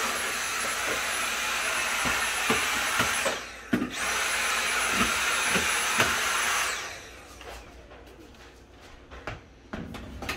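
Small vacuum cleaner running with a high motor whine, sucking up dog hair and debris. It is switched off about three seconds in, back on half a second later, and off again near seven seconds, with light knocks throughout and quieter clatter after it stops.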